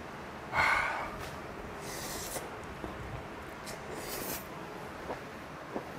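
Close-miked eating sounds of a person chewing steamed whole squid: a breathy burst about half a second in, then two short hissing sounds near two and four seconds over soft, uneven mouth noises.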